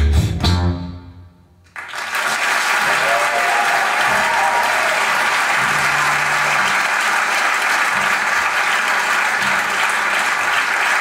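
A piece of music ends on a low chord that dies away. About two seconds in, a recorded audience breaks into steady applause, played back through Bowers & Wilkins CDM 7 Special Edition loudspeakers.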